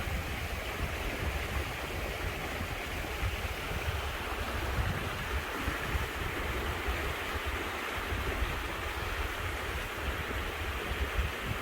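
Small creek flowing steadily, with wind buffeting the microphone as a low, fluttering rumble.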